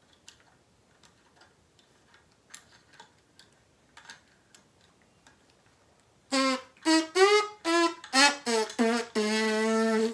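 A few faint clicks, then about six seconds in a beginner's trumpet plays a run of seven short notes and goes into a long held low note.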